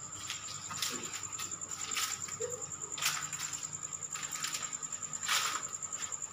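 Night insects trilling steadily in a high, pulsing tone, with a few short scuffing noises, the loudest about five seconds in.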